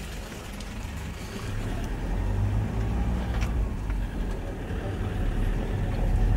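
Car engine and road noise heard from inside the cabin while driving slowly, the low hum growing louder about a second and a half in as the car picks up speed.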